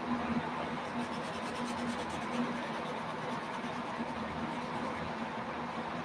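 Felt-tip permanent marker scratching on watercolor paper in quick back-and-forth strokes as a shape is filled in in black, heard between about one and three seconds in, over a steady background hum with a low tone.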